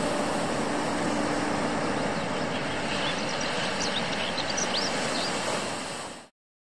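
Steady rushing shoreline ambience of wind and water, with small birds chirping now and then, cutting off suddenly near the end.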